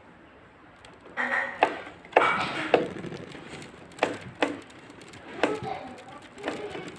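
Sharp knocks and clicks with short bursts of scraping, about seven in all, as the casing of a home theatre speaker unit is handled and opened up.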